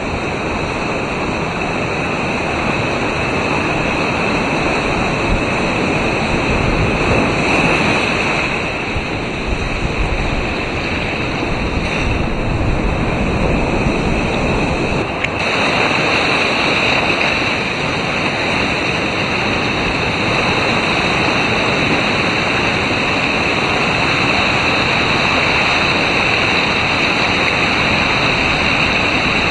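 Hurricane storm-surge surf washing over a flooded road and breaking along the shore: a loud, steady rush of churning water, with wind buffeting the microphone.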